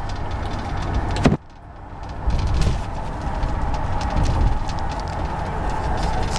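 Taxi cab driving: steady engine and road rumble heard from inside the car. It drops away sharply about a second in, then builds back up and runs on.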